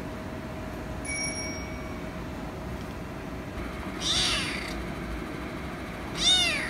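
Young kitten meowing twice, about two seconds apart, calling for attention; the second meow rises and then falls in pitch.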